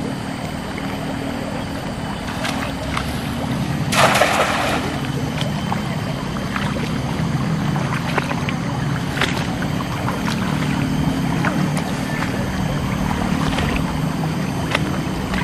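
A thrown cast net lands on the water about four seconds in with one brief splash, over a steady low drone.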